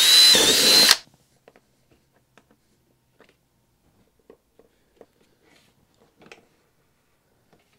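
Cordless drill with a 25/64-inch bit boring through the thin plastic wall of a storage tote for about a second, its whine rising and then holding before it stops suddenly. Then come faint clicks and rubbing as a rubber top-hat grommet and airline tubing are pushed into the new hole.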